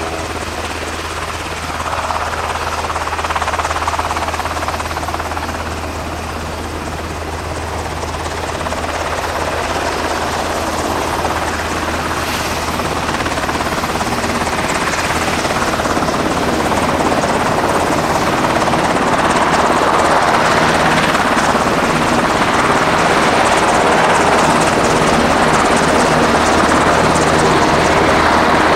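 A US Navy SH-60F Seahawk helicopter running on the ground, with the steady noise of its rotor and twin turboshaft engines growing gradually louder.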